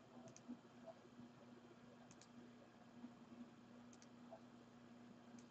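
Near silence: a few faint double clicks, roughly two seconds apart, over a low steady hum.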